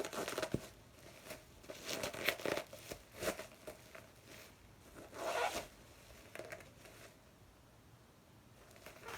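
Parcel packaging being handled and pulled open by hand: irregular short tearing and rasping rustles, like tape or wrapping being ripped, strongest around two and five seconds in.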